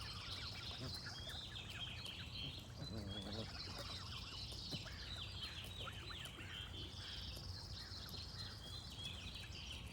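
Many small birds chirping and singing over one another, with a high buzzing trill that comes and goes three times. About three seconds in, one short low wavering call from a fowl is heard, over a faint steady low hum.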